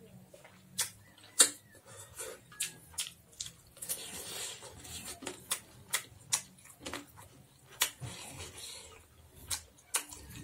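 Close-up eating sounds: a person chewing a mouthful of rice and chicken, with irregular sharp lip smacks and wet mouth clicks, and a softer rustle of food in between.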